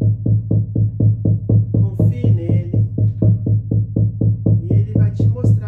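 Hide-covered shamanic frame drum beaten with a padded beater in a steady rhythm, about four beats a second, each beat ringing with a deep boom.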